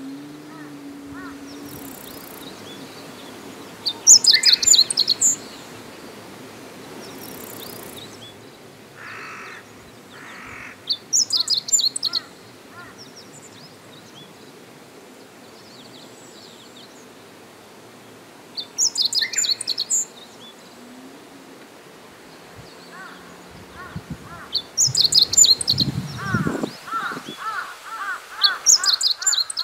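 Meadow bunting singing its short, high, twittering song phrase five times, roughly every seven seconds. Near the end a lower, rapidly repeated call from another bird joins in.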